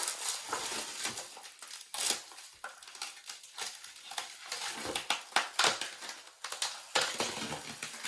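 Packaging crinkling and rustling as it is handled and opened, with irregular sharp clicks and knocks.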